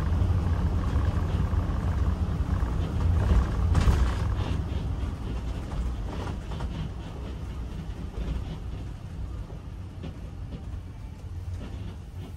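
Ford Econoline-chassis motorhome's V8 engine running with road noise, heard from inside the cab while driving: a low rumble that gets quieter over the second half.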